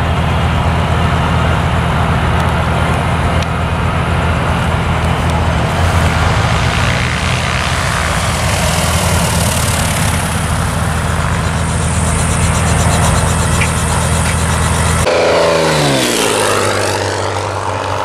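Single-engine light aircraft's piston engine running steadily. About three-quarters of the way through, the sound changes abruptly to an engine whose pitch falls as it passes by.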